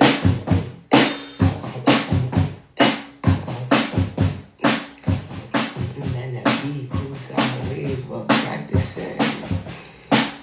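Vocal percussion: a voice beatboxing drum-like kicks and snares in an uneven rhythm of about two to three hits a second, with some low hummed tones between them.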